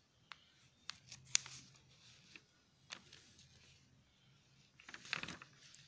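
Faint room tone with a few scattered soft clicks and a short rustling noise about five seconds in.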